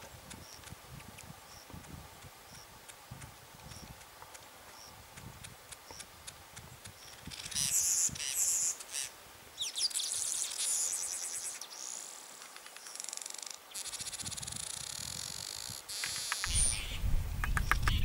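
Southern masked weaver song: faint high chirps at first, then, about seven seconds in, a loud, buzzy, wheezing chatter of rapid ticks lasting about nine seconds. It is given by a male hanging under his nest in display.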